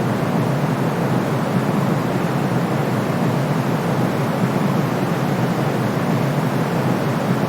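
Steady, unchanging white-noise sleep sound: an even rushing hiss, weighted toward the low and middle range and cut off at the very bottom, without any rhythm or change.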